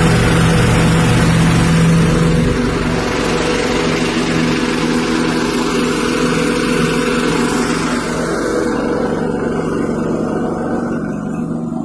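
Rice-husk grinding machine driven by a 6.5 hp petrol engine, running steadily with a broad grinding hiss over the engine note; the hiss thins out about eight seconds in.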